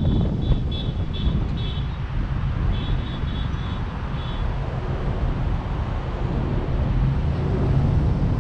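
Road traffic rumbling past on a city street, with wind buffeting the microphone. Two runs of short, evenly repeated high chirps or beeps come in the first half.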